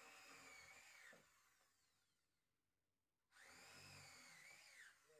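Corded electric hand drill boring into a wooden window-frame joint in two runs with a short pause between them. Its high motor whine rises as each run starts and drops away as the drill stops.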